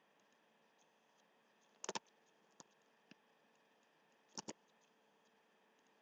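Computer mouse clicks against near silence: a quick burst of three clicks about two seconds in, two faint single clicks after it, and a double click about four and a half seconds in.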